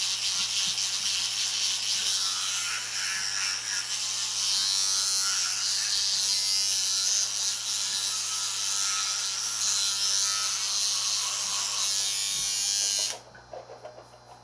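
Electric toothbrush running steadily during tooth brushing, switching off suddenly near the end.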